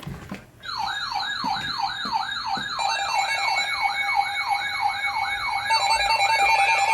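Electronic alert siren: a falling wail repeating about three times a second, joined partway through by steady alarm tones that build in layers and grow louder.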